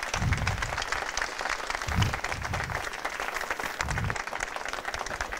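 Crowd applauding: a dense, steady patter of many people clapping.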